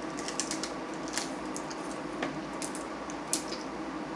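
Wet eating sounds from a seafood boil: chewing, with scattered small sharp clicks and crackles as blue crab and prawn shells are picked apart by hand.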